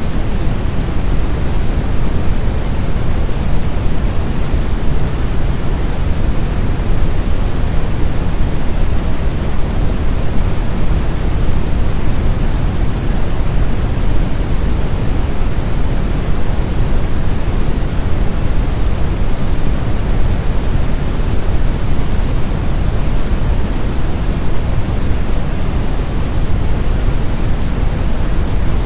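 Synthetic brown noise: a steady, smooth, deep rumbling hiss, strongest in the bass and thinning toward the highs.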